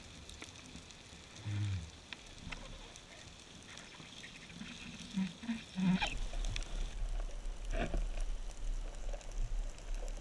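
Underwater sound heard through a camera housing: faint crackle and scattered clicks, a few low thumps, then from about six seconds a steady low rumble with sharper knocks while a speared fish is handled on the spear shaft.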